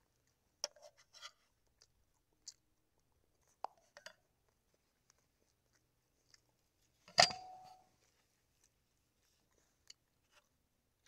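Metal fork tapping and scraping on a red divided plate while picking at fish, in sparse, short clicks. About seven seconds in there is one much louder clack with a brief ring.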